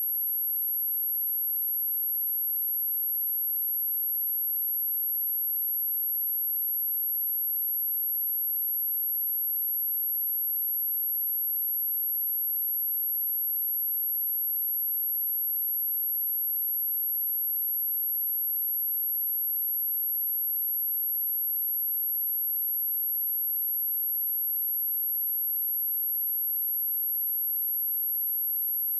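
An 11,583 Hz sine-wave test tone: one pure, very high-pitched tone held steady without a break. It is a speaker test and speaker-cleaning tone.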